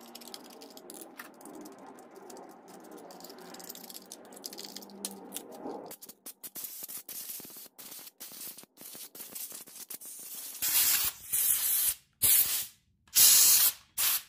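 Light scraping and small clicks of a tool working inside a chainsaw's open engine housing. Near the end come four short, loud hissing bursts of spray that blow the dust and grime out of the housing.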